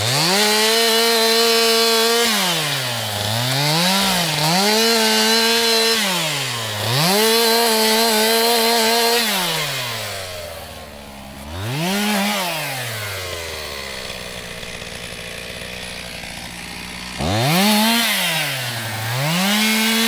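Stihl two-stroke chainsaw sawing wood. The engine is run up to full throttle and held steady for about two seconds at a time, then drops back, again and again. There is a short blip near the middle and a quieter idle stretch of a few seconds before it revs up again near the end.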